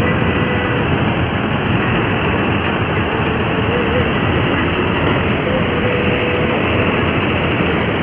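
Combine harvester running steadily while its header cuts standing ripe rice: an even, dense mechanical noise from the engine and the working header, with no let-up.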